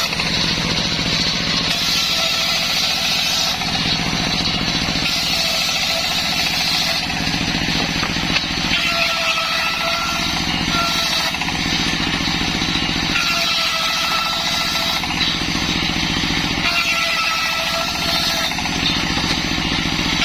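Motor-driven circular sawmill running steadily while ripping waru wood into battens. Its sound changes in a repeating cycle every three to four seconds, a ringing tone coming and going with each pass.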